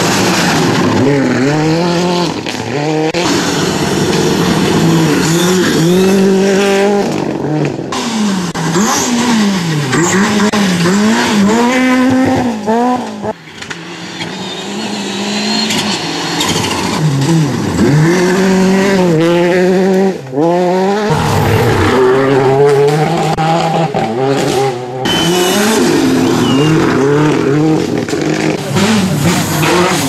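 Rally cars at full attack on a gravel stage, one after another, among them a Ford Fiesta R5 and a Mitsubishi Lancer Evolution. Their engines rev hard, rising and falling again and again through gear changes and lifts, with tyres scrabbling on loose gravel. The sound cuts abruptly from one car to the next several times.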